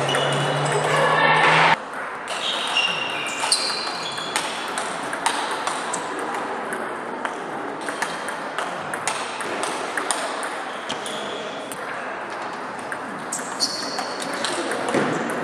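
Table tennis rally: the ball clicking back and forth off the bats and the table in a quick, irregular series of sharp pings, with a few short high squeaks from shoes on the hall floor. A loud, steady-pitched voice fills the first couple of seconds and cuts off abruptly.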